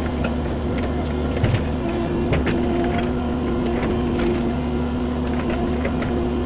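Cat 309 CR mini excavator's diesel engine and hydraulics running steadily at working speed, with a steady hum of several tones. Scattered sharp clicks and knocks sound over it.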